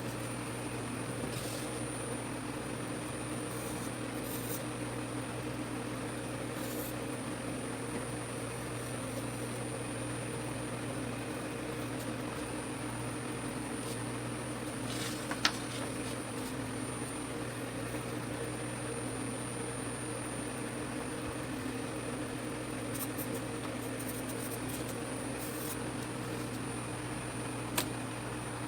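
Steady machine hum, like a running fan or other motor, with a light click about halfway through and another near the end.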